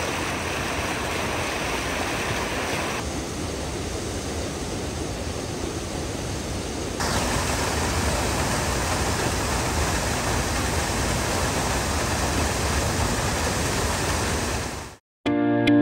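Rifle Falls waterfall rushing as a steady, even wash of noise, a little softer for a few seconds from about 3 s in, then cutting off abruptly near the end.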